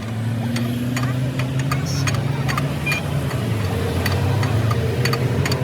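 An engine running steadily with a low hum, with scattered light clicks and taps over it.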